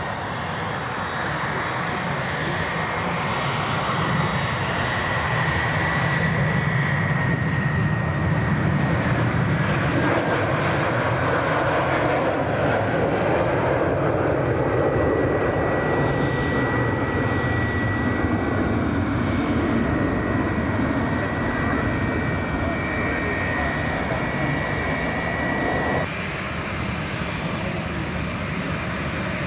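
Boeing 767-300's Rolls-Royce RB211 turbofans at takeoff power: a loud jet roar with a thin steady whine, swelling as the airliner rolls down the runway and climbs away. Near the end it cuts off suddenly to quieter jet noise.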